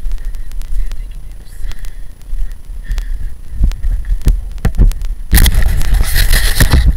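Handling noise on a phone's microphone: a steady low rumble with scattered knocks and clicks as the phone is moved about. About five seconds in, loud rubbing and scraping starts as a hand covers the microphone.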